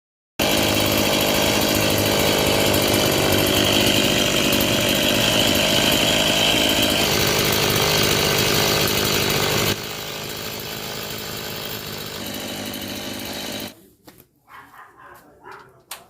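Two-stroke chainsaw engine running steadily, then dropping to a quieter, lower running about ten seconds in, and stopping nearly four seconds later; the engine is running well.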